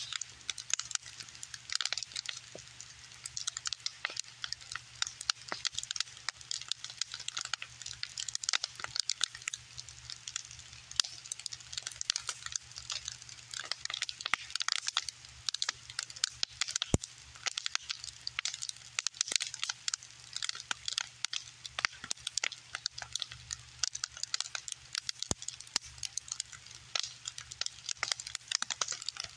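Wood bonfire of scrap lumber burning, crackling and popping rapidly and irregularly over a steady hiss.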